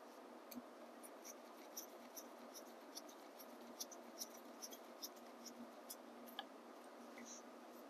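Faint, irregular small clicks and scrapes as a hex key and cover screws are fitted into the metal motor cover of an electric dirt bike, the screws being threaded in by hand.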